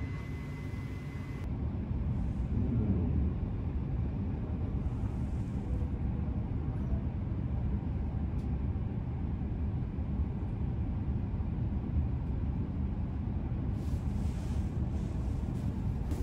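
Low, steady rumble of an E7 series Shinkansen car's interior as the train gets under way from the platform, a little louder after the first couple of seconds. A faint steady high tone sounds in the first second and a half.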